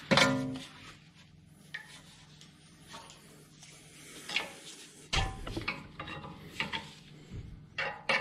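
A sharp metal clank that rings briefly, then scattered light clicks, scrapes and a dull knock as the rear brake's caliper carrier and pads are handled.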